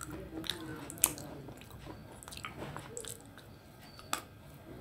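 A person biting and chewing close to the microphone: wet chewing broken by a handful of sharp crunches, the loudest about a second in, as something hard is bitten off.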